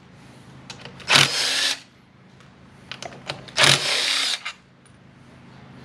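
Cordless drill-driver running in two short bursts, each under a second, backing out the 8 mm bolts of a scooter's transmission case cover, with a few light clicks between.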